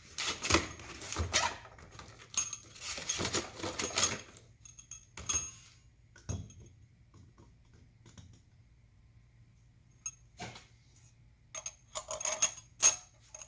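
Metal hand tools and engine parts clinking and rattling as they are handled: a dense run of clicks over the first four seconds, a few scattered clinks, then another cluster near the end.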